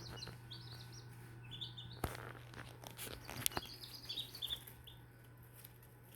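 Baby chicks peeping: short, high chirps in scattered bursts, thinning out near the end. A steady low hum runs underneath, with a couple of faint clicks.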